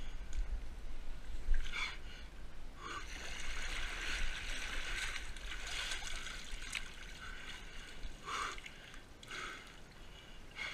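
Hard breathing of an obstacle-race runner in short, gasping bursts, over rustling and scuffing as he scrambles through an obstacle with the camera on his body; the scuffing is densest in the middle.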